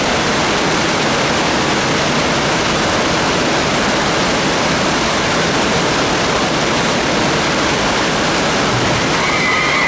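Steady, even rush of water from a rapids ride's artificial river and waterfall. A few brief whistle-like tones sound over it near the end.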